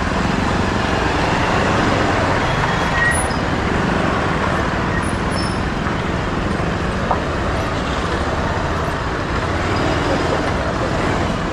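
Motorcycle riding slowly through dense city traffic: its engine running steadily under the hum of surrounding scooters, motorcycles and cars, picked up by an action camera on the handlebar.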